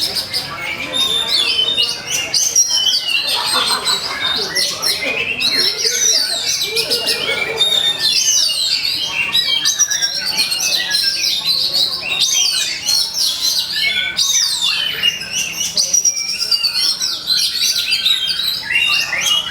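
Oriental magpie-robin (kacer) singing without a break in a rapid, varied run of loud whistled notes and chatter. This is the aggressive 'fighting' song used as a lure to provoke other males.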